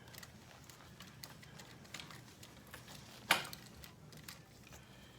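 Scattered small clicks and taps of parts and hand tools being handled during disassembly, with one louder sharp click a little over three seconds in.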